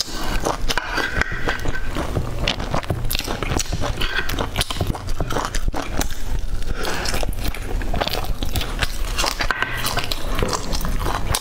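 Close-miked chewing and biting of crisp orange fried food sticks: a dense, continuous run of crunching and crackling.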